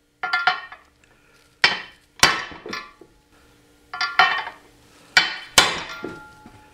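A hammer tapping an 18 mm socket, used as a driver, on a steel needle-bearing sleeve to seat it in a motorcycle swing arm's pivot bore. There are about a dozen sharp metal taps in short clusters of two or three, each ringing briefly. These are the last taps that set the sleeve just below the ledge inside the bore.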